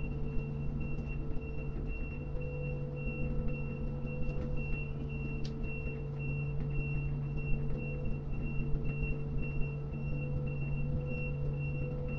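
Steady low hum of a port crane's machinery running, with a high-pitched warning beep repeating at an even rate and a single sharp click about five and a half seconds in.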